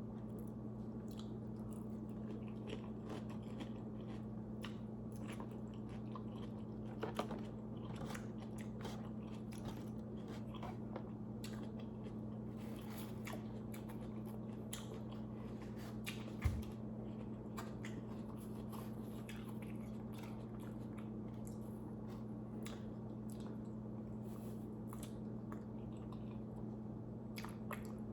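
Close-up eating sounds: biting and chewing pizza, with many small wet mouth clicks, over a steady low hum. A louder knock sounds about halfway through.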